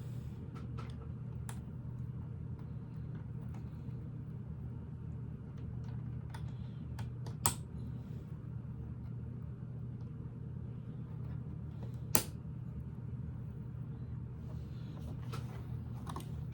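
Plastic Lego pieces being handled and pressed together: scattered light clicks, with two sharper snaps, one near the middle and one about three quarters in. A steady low hum runs underneath.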